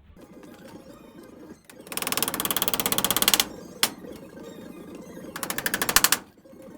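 Hammer driving nails into tin roofing: two runs of very rapid metallic blows, one about two seconds in lasting well over a second and a shorter one near the end, with a single sharp hit between them. The blows come faster than a hand can swing, as in sped-up time-lapse footage.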